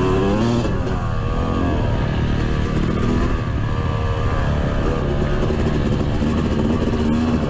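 Yamaha YZ250's single-cylinder two-stroke engine running hard on the move, its pitch rising and falling as the throttle is opened and backed off between turns.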